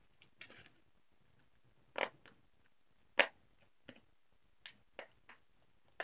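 Silicone pineapple pop-it fidget toy being pressed by fingers, its bubbles giving a handful of separate short pops, the loudest two about two and three seconds in.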